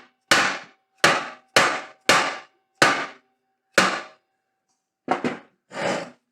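About nine sharp hammer blows on metal at an uneven pace, a thin metallic ring hanging on between the first several and the last ones coming close together. A tight-fitting portable band saw is being knocked down into its mounting table.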